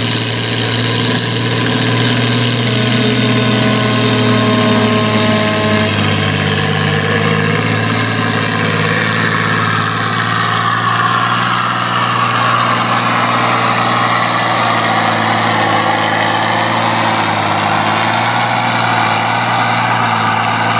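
Farm tractor-pull tractor's engine running hard and steady through a pull, with a thin high whine that dips and then climbs.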